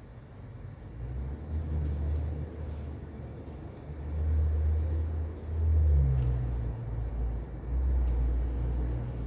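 Wind buffeting the microphone: a low rumble in uneven gusts that swells and fades, strongest about four to six seconds in and again near eight seconds.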